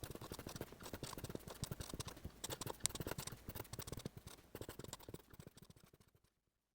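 Faint, rapid, irregular clicking and tapping that thins out and stops about six seconds in.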